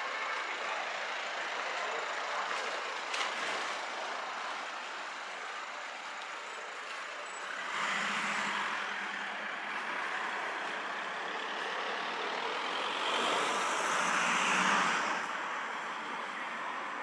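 City street traffic: a steady wash of road noise, with a heavy vehicle's engine and tyres swelling past about eight seconds in and another, louder one near the end.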